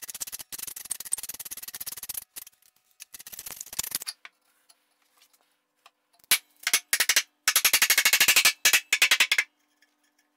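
A hand-held tenon cutter being twisted around the end of a wooden stretcher, its blade shaving the wood in a dense scraping rasp of rapid clicks. It stops and starts, with loud bursts in quick succession in the second half.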